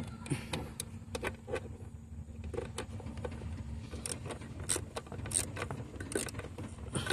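Scattered light clicks, taps and small metallic knocks of hands and tools working a throttle body loose in an engine bay, over a steady low hum.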